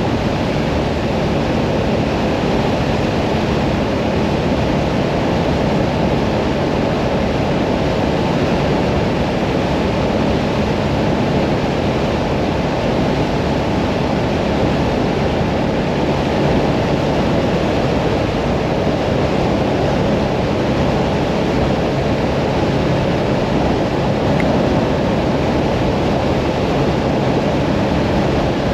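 Hyosung Mirage 650 V-twin motorcycle cruising at a steady speed on the open road. Rushing wind on the microphone is the loudest thing, with a faint, even engine drone beneath it.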